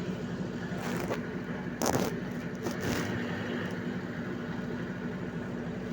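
Brastemp BWK12 12 kg washing machine running with a steady hum, with a few short knocks or scrapes about one, two and three seconds in. It is the abnormal noise the owner says the machine has started making for no reason she knows.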